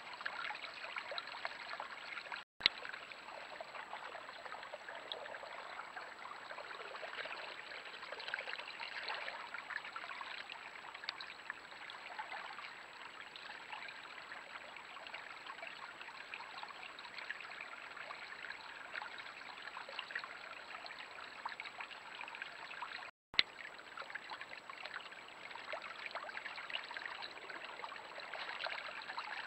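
Water trickling steadily, like a small stream running, with a faint high steady whine above it. The sound breaks off to silence twice, briefly.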